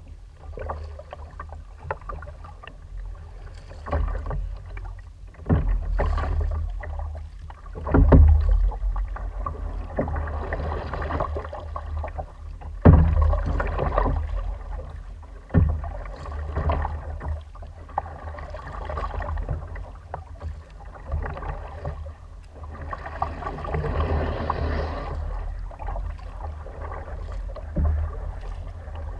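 Kayak paddle strokes: the double-bladed paddle dipping and pulling through shallow water in repeated swishing splashes every few seconds. Several sharp knocks stand out as the loudest sounds, over a steady low rumble.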